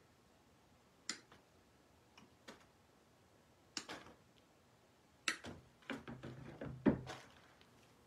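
Hand cutters snipping through the stems of floral picks: a handful of short, sharp clicks spaced about a second apart, several closer together past the middle, with a duller knock near the end as the loudest.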